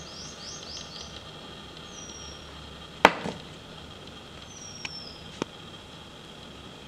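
Small bird calling in thin, high, falling whistles: a quick run of four near the start, then single notes about two seconds in and just before five seconds, over a steady high hum. A sharp click about three seconds in is the loudest sound, with two fainter clicks around five seconds.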